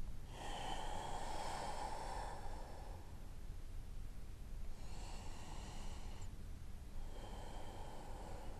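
A woman breathing slowly and deeply with audible, throaty breaths, three long breaths in and out of a second or two each.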